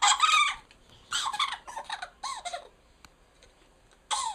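A person's high-pitched, honking, donkey-like laugh, coming in four bursts with short pauses between.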